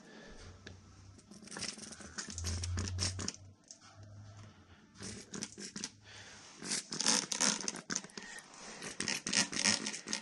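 Trigger spray bottle squirting soapy water onto black-iron gas pipe fittings in clusters of quick, short hissing spritzes, a leak check on newly connected gas line joints.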